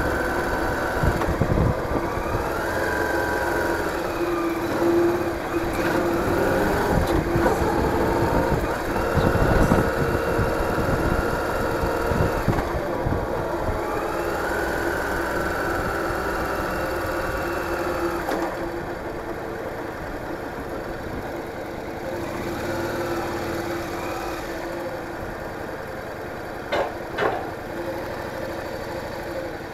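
Yamaha DragStar Classic's V-twin engine running under way, its pitch rising and falling several times through throttle and gear changes, then quieter and lower from about two-thirds in as the bike slows. Two sharp clicks near the end.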